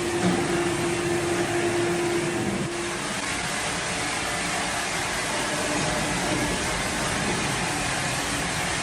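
Sawmill machinery running steadily, a broad mechanical noise with a steady hum that stops about three seconds in.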